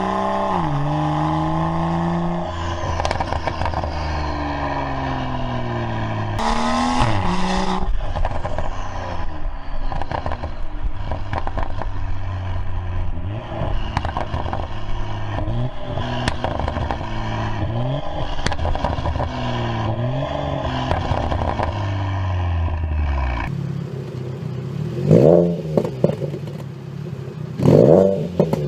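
Performance car engines revving up and falling back, their exhausts crackling and popping on the overrun, in several short clips one after another. Two quick rev blips come near the end.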